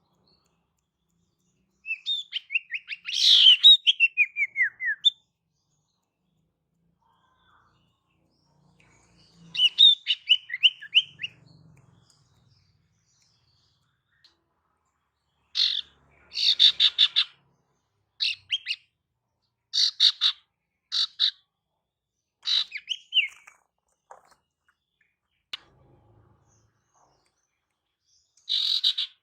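Female sirtu (common iora) calling in separate phrases: rapid trills of high chirps that fall in pitch, then a run of about eight short, quick bursts of chirps, with pauses between phrases.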